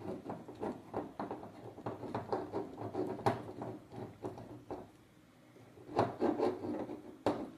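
Hands handling a small plastic robot: a run of light clicks and rubbing as a soft adhesive cushion pad is fitted and pressed onto its plastic foot plate, a short lull, then more rubbing ending in a sharper click.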